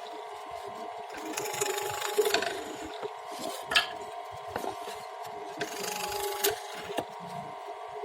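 Woodworking on timber: a steady hum runs underneath, with repeated rasping passes of about a second each over the wood and a few sharp clicks.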